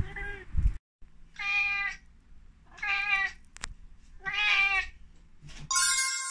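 Ginger domestic cat meowing: a short meow at the start, then three longer meows about a second and a half apart. Near the end a bright burst of music comes in.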